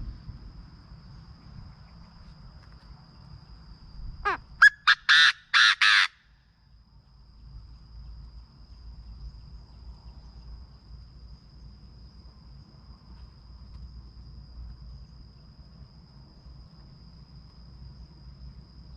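Chinese francolin calling: one loud burst of about six harsh notes, the first sweeping upward, about four seconds in. A steady high-pitched whine runs underneath.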